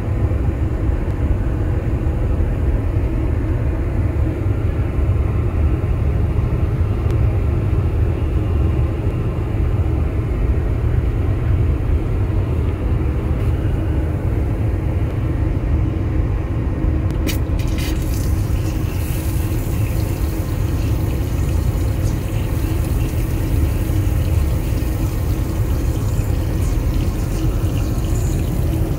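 Steady low rumble of an Airbus A320neo airliner in flight, heard inside its lavatory. About 17 seconds in there is a click, and then the push-button tap runs water into the steel basin.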